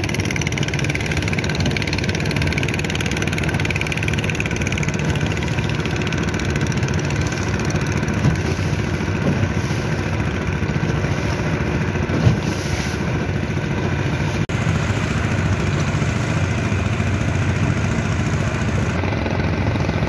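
Small fishing boat's engine running steadily while the boat is under way.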